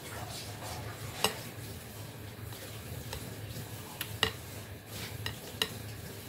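Metal spoon clinking against a large glass bowl of watermelon punch as it scoops fruit and ice: several sharp clinks, one about a second in and a cluster later on, the loudest about two-thirds of the way through.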